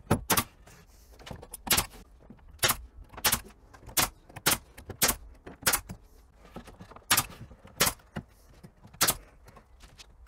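Pneumatic brad nailer firing about a dozen times at uneven intervals, each shot a sharp clack as it drives a brad through an OSB shelf into the timber frame.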